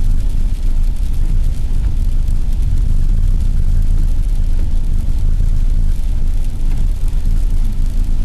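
Steady low rumble of a vehicle driving on a slushy, snow-covered road, heard from inside the cabin.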